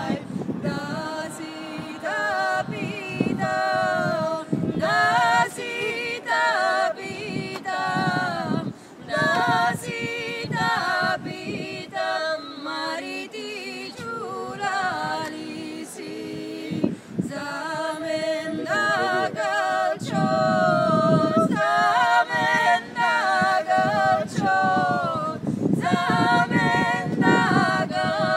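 Three women singing together a cappella, their unaccompanied voices holding and bending long sung notes.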